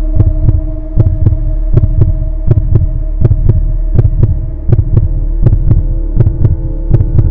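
Heartbeat sound effect: a steady double thump repeating a little faster than once a second over a sustained humming drone.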